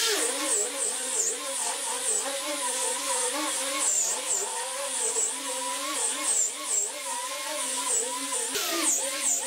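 Small electric angle grinder with a sanding disc sanding a wooden tabletop, its motor whine wavering up and down in pitch as the disc is pressed and moved across the surface.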